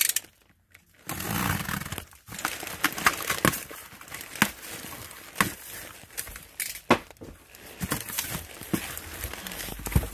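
Packaging being handled and torn open, starting about a second in: crinkling and rustling, with irregular sharp snaps and taps.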